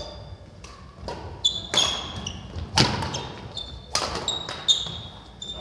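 Badminton rally: rackets striking the shuttlecock with sharp cracks about five times, with sneakers squeaking briefly on the hardwood court between hits, echoing in the large gym.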